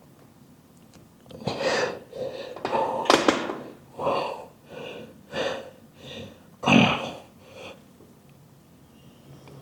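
A man breathing hard: a run of about nine loud, breathy exhalations and gasps, loudest near the end.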